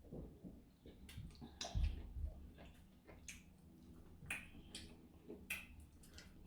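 Faint eating sounds: chewing and mouth clicks, with a few sharp ticks scattered through and a soft low thump a little under two seconds in.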